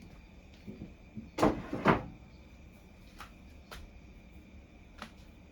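Kitchen handling noises: two knocks about half a second apart, then a few faint clicks, like a bottle, cap or cupboard being handled while oil goes into the pan.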